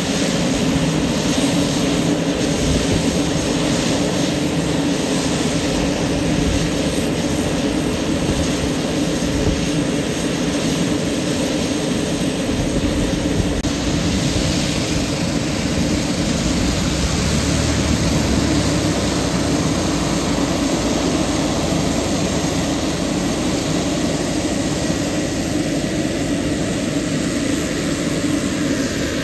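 Pilatus PC-12 NGX's Pratt & Whitney PT6E-67XP turboprop engine running steadily on the ground, a constant loud hum of turbine and propeller.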